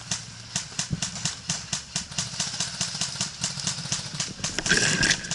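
Quick footsteps on hard ground, about three to four steps a second, from a player moving between cover. About four and a half seconds in there is a louder, noisier rustle lasting half a second.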